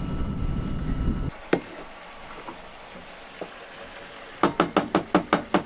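A low rumble of wind on the microphone that cuts off suddenly about a second in. Then a pan sizzling faintly on a galley stove, with a couple of single clicks and, near the end, a quick run of about eight clattering strokes of cooking at the pan.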